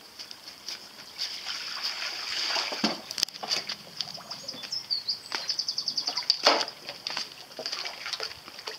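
Water splashing and sloshing as a small toy foil kayak is towed on a string through a shallow stone pool, in irregular bursts with a couple of sharper splashes.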